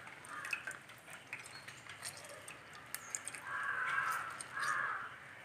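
Faint bird calls in the background: a few short calls, then two longer ones about three and a half and four and a half seconds in. Small faint clicks are heard along with them.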